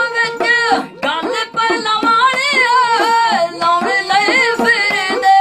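Punjabi dhadi music: a bowed sarangi melody with small hourglass dhad drums tapped by hand and men singing.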